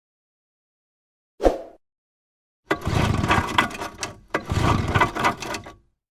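Outboard motor making a short knock and then two separate bursts of mechanical clattering, each about a second and a half long, with silence between them.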